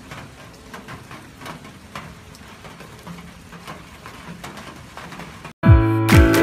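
Steady rain falling, with scattered sharp taps of drops striking nearby surfaces. Near the end it cuts off abruptly and loud music with a deep kick-drum beat starts.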